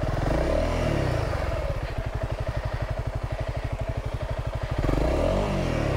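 Honda CRF300 Rally's single-cylinder four-stroke engine running at low revs with a steady pulsing beat, revving up and back down twice: briefly about half a second in, and again near the end.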